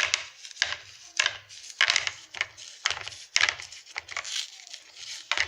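Iceberg slime being pressed and squeezed by hand, its crusty surface crackling about twice a second with a soft low squish under each press.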